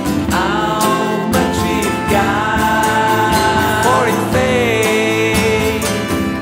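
Song playing: acoustic guitar strumming under a long held melody line that slides between notes.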